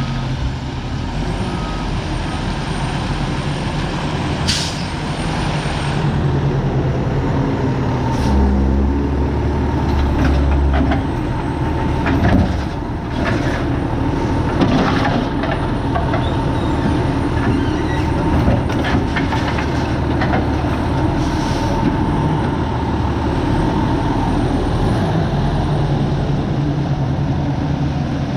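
Diesel garbage truck running, with its engine rumbling heavier for a few seconds about a third of the way in and several short hisses of air brakes released.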